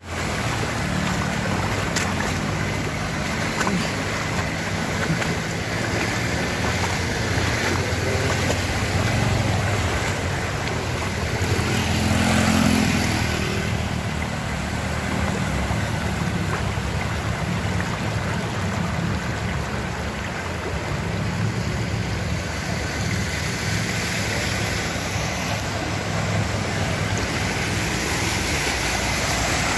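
Steady rush of floodwater over a road as motorbikes ride through it, with the low hum of their engines; the noise swells briefly about twelve seconds in.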